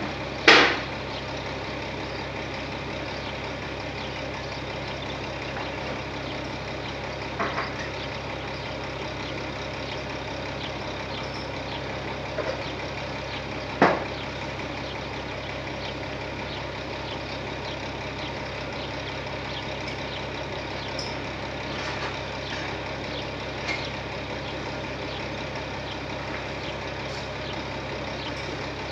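Tipper truck's diesel engine idling steadily. A loud sharp bang comes about half a second in and another about halfway through, with a few fainter knocks between and after.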